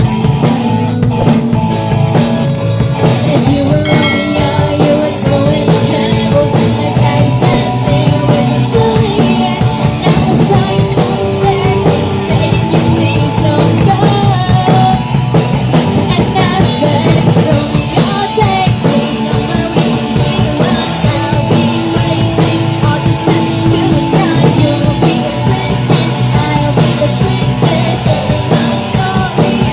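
A band playing rock music live, with a drum kit and a singing voice.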